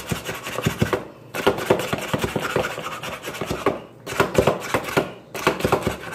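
Hand-operated food chopper being worked over and over, its blades grinding cheese puffs into crumbs with a fast rasping rattle. It goes in bursts of a second or two, with brief pauses between strokes.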